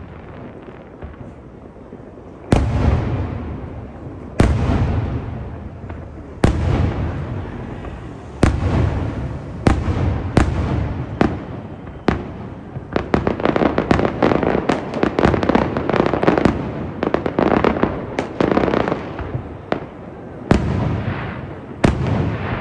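Aerial fireworks bursting overhead: single loud bangs about two seconds apart, each trailing off in a long rolling echo, then a dense run of rapid crackling bursts in the middle, and a few more single bangs near the end.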